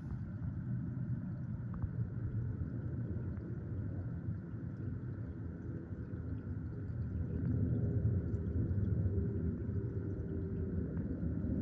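Airbus A380-842 jetliner's four Rolls-Royce Trent 900 turbofan engines passing overhead: a low, steady rumble with a faint engine hum, swelling a little past the middle as the sound lingers after the aircraft has gone by.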